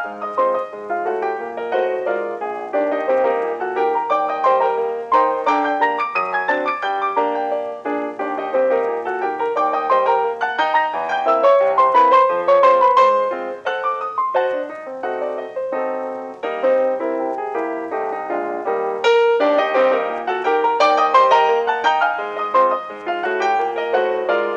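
Solo piano music playing a busy, continuous run of notes as a silent-film score.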